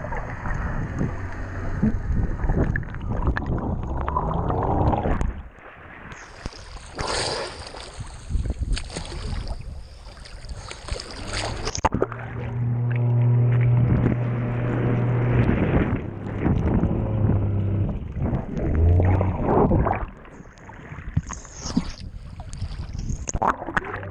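Seabob underwater scooter's electric jet drive heard underwater: a steady low hum with rushing water and bubbles. The sound shifts about five seconds in, with a stretch of high hiss until about twelve seconds, then the hum returns.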